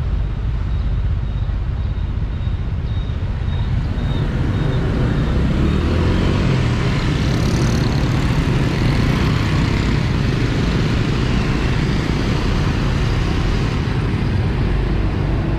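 Street traffic noise with motorbikes passing: a steady low rumble that grows louder about six seconds in.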